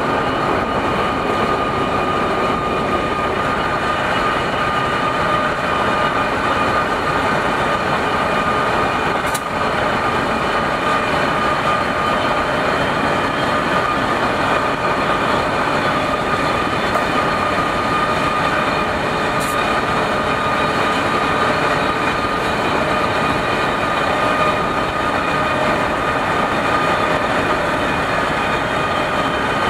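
Pacific National NR class diesel-electric locomotive (GE Cv40-9i) running steadily under power alongside a moving car, heard from the car. A continuous drone with a steady whine in it, mixed with road and wind noise.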